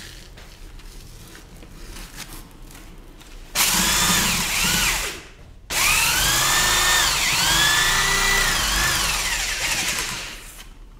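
Power drill spinning a 220-grit sandpaper hone inside the air rifle's steel compression cylinder, polishing the chamber walls. The drill starts about three and a half seconds in and runs in two spells, a short one and then a longer one of about five seconds. It makes a loud hissing whine whose pitch rises and falls.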